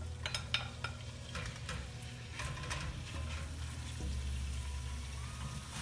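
Bite-size chicken breast pieces sizzling in olive oil in a frying pan, with scattered light clicks and taps through the hiss.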